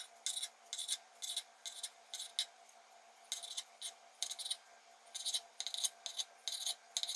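Kitchen knife slicing a thawed chicken breast on a cutting board, each cut ending in a short crisp tap of the blade on the board. The taps come about two a second, with a brief pause a little before the middle.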